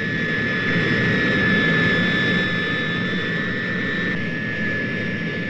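Tu-16 jet bomber taking off and climbing away: a steady high turbojet whine over a rushing roar that grows louder for the first two seconds and then slowly fades.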